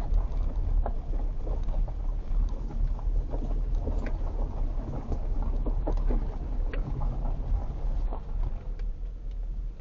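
A vehicle driving slowly over a rough dirt and gravel road: a steady low rumble with frequent small knocks and rattles.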